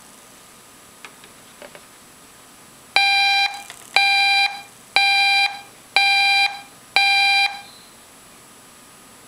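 Five electronic warning beeps through a TV speaker, one a second, each about half a second long at one steady pitch, starting about three seconds in. They are The Weather Channel's local forecast alert, sounding as a tornado warning bulletin comes up.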